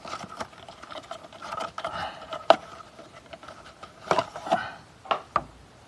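Hands handling an oil filter and rag: scattered light clicks, taps and rustles, with one sharper click about two and a half seconds in, over a faint steady hum.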